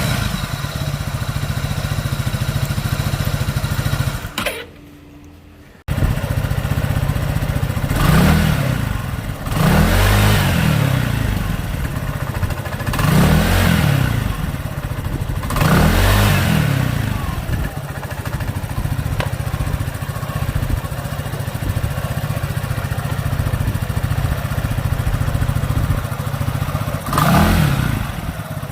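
Scooter engine running and blipped several times, rising and falling in pitch, with the rubbing of a worn aftermarket 20-ball starter clutch whose 'balls' scrape against the large gear instead of rolling. The noise is easily mistaken for a slipping belt or clutch. About four seconds in the sound drops away for a moment and comes straight back.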